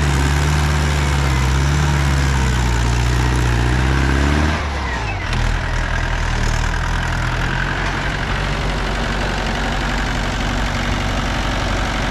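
Mahindra 575 DI tractor's four-cylinder diesel engine working hard with a loaded soil trailer, its pitch rising slightly, then dropping back to a lower steady idle about four and a half seconds in.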